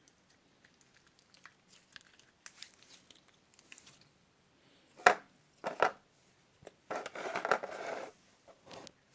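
Slime being squeezed and worked by hand: small crackling clicks, two sharper pops about five and six seconds in, and a longer crackly squish near the end.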